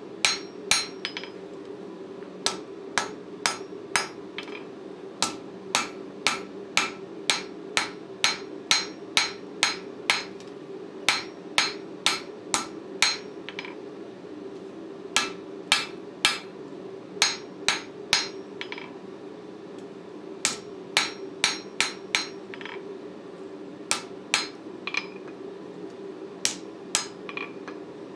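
Hand hammer striking red-hot O1 tool steel on an anvil, sharp blows about two a second in runs with short pauses, over a steady low hum.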